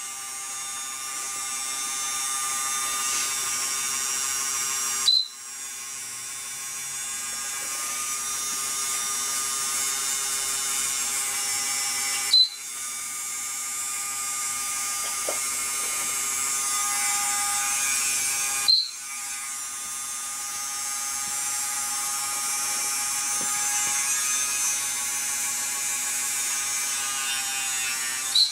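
A Dremel rotary nail grinder runs steadily with a high, many-toned whine. It is broken about every six or seven seconds by a short, sharp high pip, four times in all, each followed by a brief dip in the motor sound.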